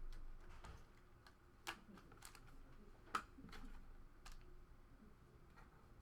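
Faint scattered light clicks and taps from handling things at a desk, two of them sharper, about a second and a half apart.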